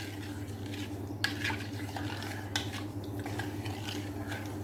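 A spoon stirring salt into water in a bowl to dissolve it, with light clinks of the spoon against the bowl every half second or so. A steady low hum runs underneath.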